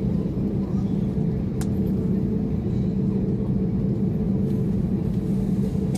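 Steady low cabin rumble and hum inside an Airbus A321neo on the ground after landing, its engines running at idle. A faint click about a second and a half in.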